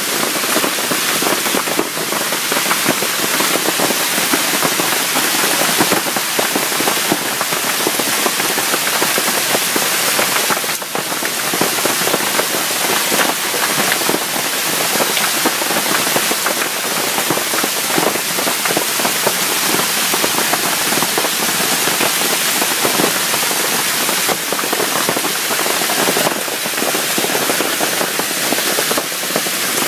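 Heavy hailstorm: hailstones and rain pelting the street, parked cars and trees in a dense, continuous crackle of small impacts.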